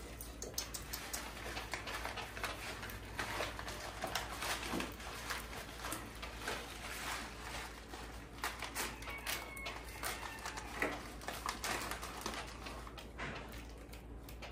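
Dense, irregular crinkling, rustling and small clicks of hands handling a plastic instant-noodle packet and food at a table, over a low steady hum.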